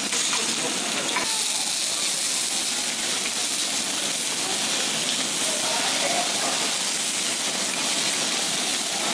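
Abalone, prawns and scallops sizzling on a hot teppanyaki steel griddle: a steady, even hiss.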